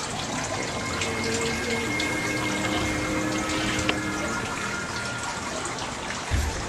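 Steady trickling and splashing of running water in aquarium tanks.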